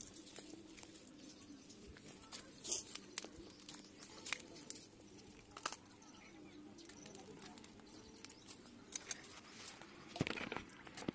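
Quiet, scattered clicks and taps of raw, skinned chicken being handled in a steel bowl, with a louder cluster of sharp clicks near the end as the knife comes into play.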